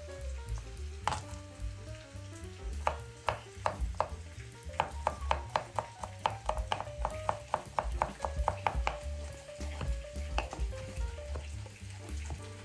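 Chef's knife chopping garlic cloves on a wooden cutting board: a run of quick, even knocks, about four a second, starting about three seconds in and stopping about ten seconds in, over soft background music.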